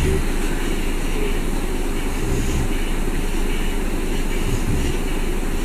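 Steady low rumbling drone with a constant low hum, and a couple of soft low thumps partway through.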